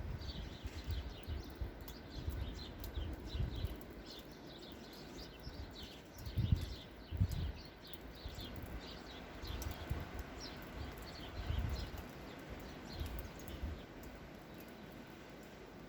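Small birds chirping: many short, quick, falling chirps repeated throughout. Irregular low thumps sound under them, the loudest about six and a half seconds in.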